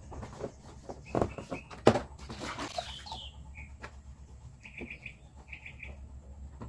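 Plastic tank and lid of a portable upholstery cleaner being handled and wiped with a cloth: two sharp knocks about one and two seconds in, then three short runs of quick high chirps.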